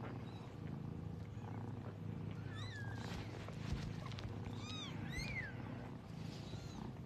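Siberian mother cat purring steadily while her newborn kittens give a few short, high, squeaky mews, the first about two and a half seconds in and more around the five-second mark.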